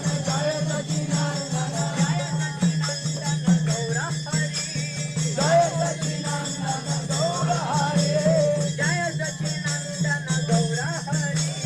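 Congregational kirtan: a group chanting a devotional mantra in call-and-response style, with kartal hand cymbals clashing in a fast, steady rhythm. A constant low hum runs underneath.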